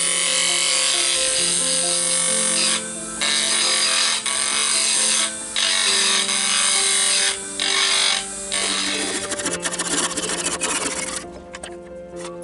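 Turning tool cutting a spinning wood blank on a King KWL-813VS mini wood lathe: a loud hiss of shavings that stops briefly four times as the tool comes off the wood. Past the middle it turns into a rapid run of fine ticks before dropping away near the end. Background music plays throughout.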